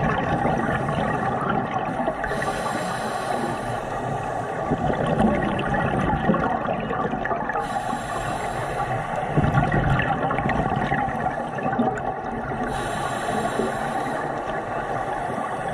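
Scuba diver's regulator breathing heard underwater: three breaths about five seconds apart, each a hiss, with exhaled bubbles gurgling in between.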